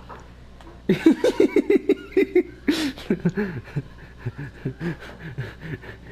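A man laughing uncontrollably: a rapid string of short, high-pitched laughs, about five a second, starting about a second in, broken by a long wheezing gasp for breath a little before the three-second mark, then more, lower laughs.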